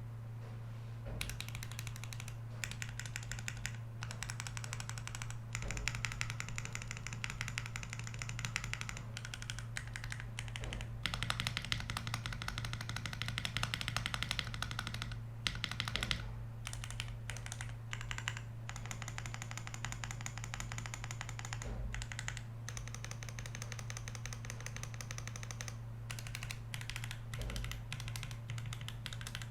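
Fast typing on a CIY Gas67 mechanical keyboard with Gateron Pro Silver linear switches, ABS doubleshot keycaps and a two-layer tape mod. Runs of rapid keystrokes start about a second in, with short pauses between runs, over a steady low hum.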